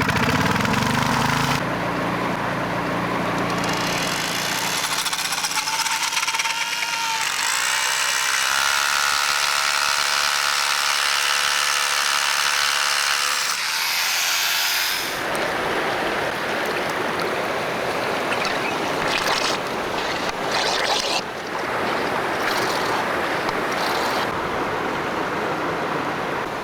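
Small-engined power tool starting up and running at high speed with a steady high pitch, then working with a rougher, noisier sound from about halfway on.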